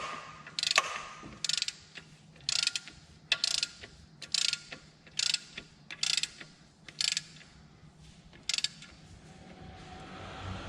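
Ratchet wrench clicking in short bursts, about one a second, as the 14 mm bolt on top of an alternator is tightened; the clicking stops at about eight and a half seconds.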